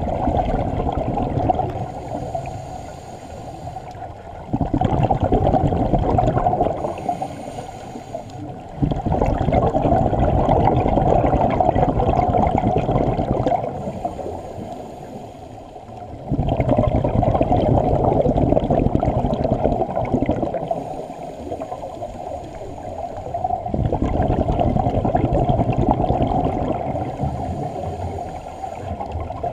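Scuba diver's exhaled breath bursting from the regulator as a rush of bubbles, heard underwater. Each exhalation lasts about four seconds and comes back roughly every seven seconds, with a quieter lull between breaths.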